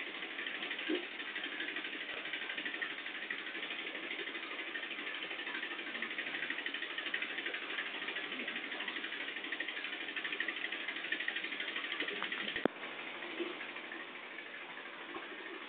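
A small machine running steadily with a rapid buzzing hum. It drops a little in level after a sharp click near the end.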